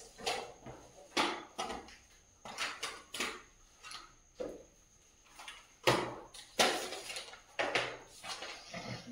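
A series of irregular short scraping and knocking sounds, a dozen or so strokes of a fraction of a second each with brief pauses between them, the loudest about six seconds in.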